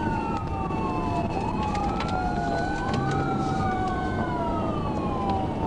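Police siren in a slow rising and falling wail during a pursuit, over steady road and engine noise.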